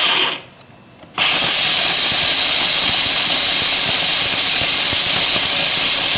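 Electric food processor chopping dried bread slices into crumbs, its motor and blade running loud. It stops briefly just after the start and starts again about a second in.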